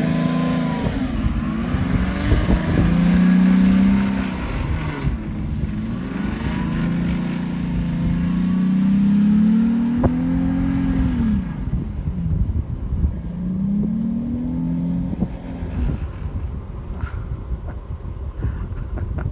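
Jeep Wrangler's engine revving up and falling back several times over a heavy low rumble; the engine sound fades away near the end.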